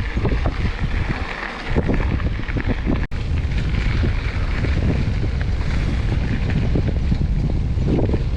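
Wind buffeting the microphone of a helmet or bike-mounted action camera on a moving mountain bike, over mountain-bike tyres rolling on dirt and the bike rattling and knocking over rough ground. The sound cuts out for an instant about three seconds in.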